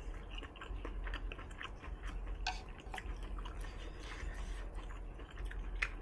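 Close-miked chewing of a mouthful of dense tofu: irregular wet mouth clicks and smacks, with a few sharper clicks about two and a half, three and six seconds in.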